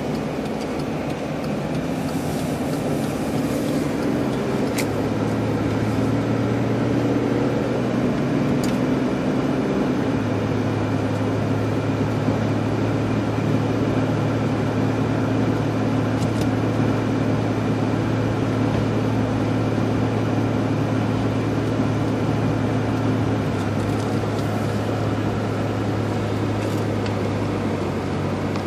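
A car being driven, heard from inside the cabin: a steady engine hum under road and tyre noise, growing a little louder a few seconds in and then holding even, with a few faint ticks.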